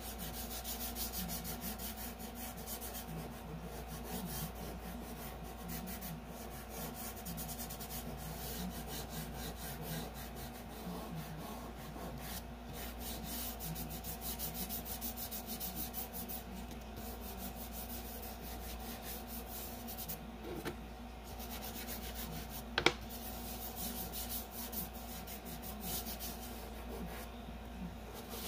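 Hand rubbing chalk pastel into paper to blend it, a continuous dry scrubbing made of quick strokes, with one sharp click a little past two-thirds of the way through.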